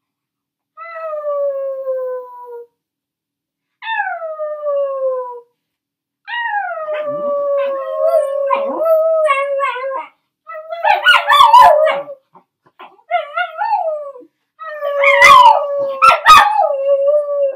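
A dog howling along with a woman's howling: two drawn-out howls falling in pitch, then a long held howl, then louder, more tangled overlapping howls near the end.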